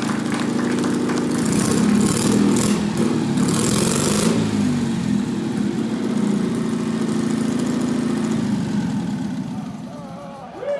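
Air-cooled flat-twin engine of a motorcycle built from Citroën 2CV parts, running steadily, its note wavering in the middle. It fades out and stops near the end.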